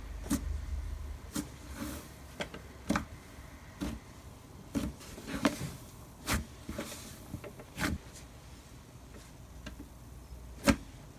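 Slime being stretched and pressed by hand, making about a dozen short, irregular sticky pops and clicks; the loudest pop comes near the end.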